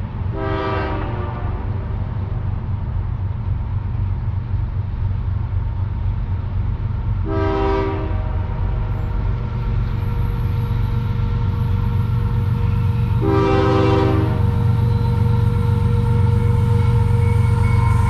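Air horn of a Canadian Pacific GE ES44AC diesel locomotive sounding three blasts, a short one just after the start, then one about seven seconds in and one about thirteen seconds in, each about a second long. Under them, the low rumble of the locomotives' diesel engines grows steadily louder as the train approaches.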